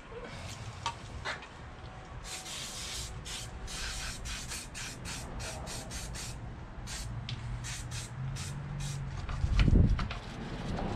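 WD-40 aerosol sprayed onto the motorcycle drive chain in a run of short hissing bursts, from about two seconds in until about nine seconds in. A loud low thump near the end.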